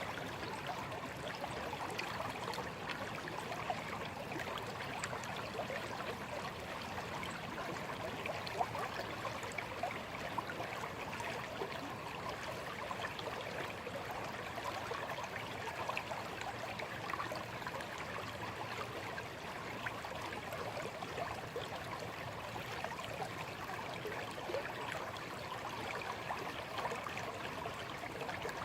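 Shallow stream running steadily, its water babbling and trickling.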